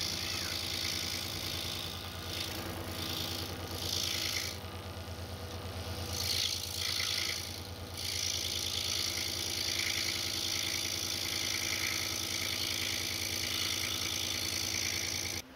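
DEWALT scroll saw running and cutting through the board along a curved letter outline: a steady motor hum under a higher cutting noise that fades and returns a few times as the work is fed. It cuts off abruptly near the end.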